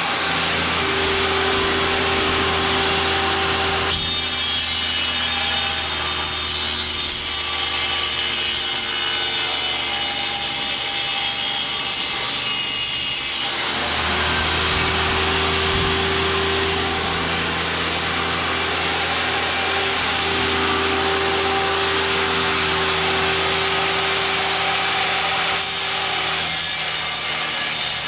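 Electric power saw cutting through wood boards, running continuously. Its sound shifts about four seconds in and again about thirteen seconds in. These are the replacement center console pieces being cut out.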